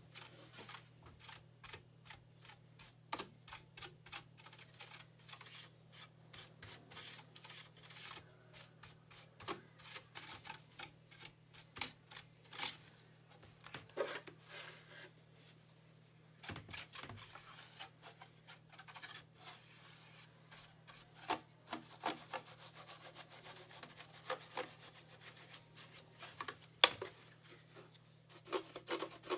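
Hands working at the plastic body and wrist rest of a Logitech ERGO K860 split keyboard: irregular rubbing and scraping with many small clicks and taps, busier and louder near the end.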